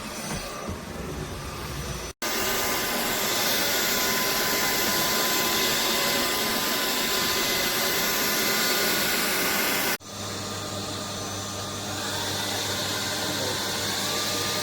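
AlloyMove A05 cordless stick vacuum running, a steady rush of air with a thin motor whine. It is cut off abruptly about two seconds in and again about ten seconds in, as separate clips are joined.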